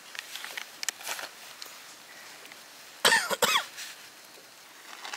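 Light crinkling of plastic sheeting and a paper spice packet as raw pork is seasoned by hand. About three seconds in comes a sudden, short burst of a person's voice with a falling pitch, the loudest sound.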